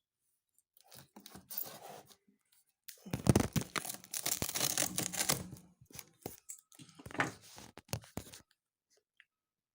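Microwave's shipping box being torn open: packaging tearing and rustling in irregular bursts. The longest and loudest tearing comes about three seconds in and lasts a couple of seconds, followed by scattered short scrapes and knocks.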